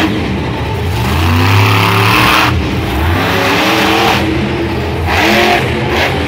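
Monster truck's supercharged V8 revving hard in about three surges, its pitch climbing with each push of the throttle and dropping between them.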